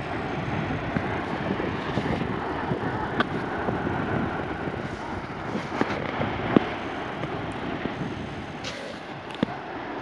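Steady seaside rush of sea surf and wind buffeting the microphone, with a few sharp clicks and knocks.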